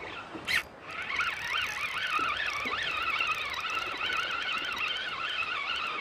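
Spinning fishing reel being cranked: a high whine that wavers up and down about twice a second with the turns of the handle, after a brief swish about half a second in.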